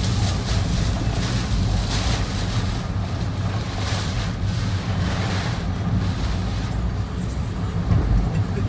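Typhoon winds gusting hard, with a steady low rumble of wind on the microphone and hissing gusts that swell and fade every second or two.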